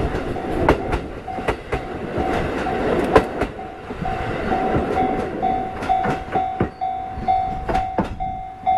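Passenger coaches rolling past, their wheels clacking over rail joints in sharp irregular clicks, while a level crossing warning bell rings in a steady repeated ding about twice a second.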